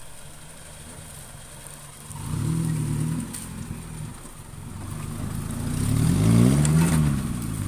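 Off-road vehicle's engine revving hard twice: a short burst about two seconds in, then a longer rev that climbs and falls back near the end. The vehicle is stuck nose-down in a rut and being pulled out.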